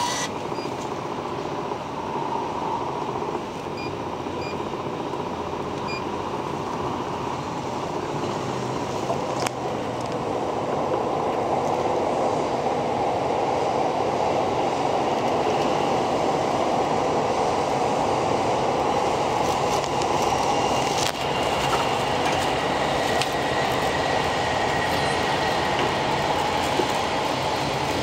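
Vending machine's internal dispensing mechanism running with a steady mechanical rumble as it fetches the purchased item, growing louder about a third of the way in, with a couple of faint clicks.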